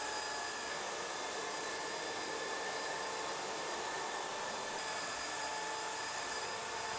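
AEG QX7-1 cordless stick vacuum running steadily with its Powersoft soft-roller floor nozzle on a hard floor: an even rush of suction air with a steady, high motor whine.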